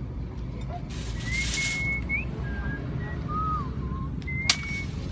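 Someone whistling a few slow held notes that slide up or down at their ends, over a steady low rumble. There is a short hiss about a second in and a single sharp knock near the end.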